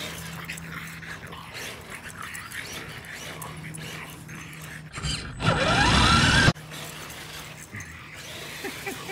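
A French bulldog puppy making small noises as it chases a radio-controlled crawler over grass. About five seconds in comes a louder stretch with a rising whine lasting about a second and a half, which cuts off suddenly.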